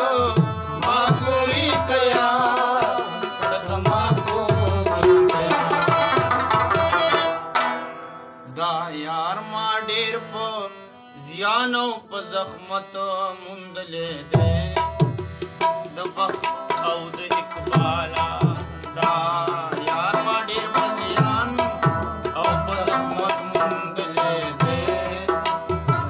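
Rabab playing a plucked melodic instrumental passage with sliding notes, backed by a hand-played barrel drum. The drum stops about eight seconds in, leaving the rabab alone for several seconds, then comes back in about fourteen seconds in.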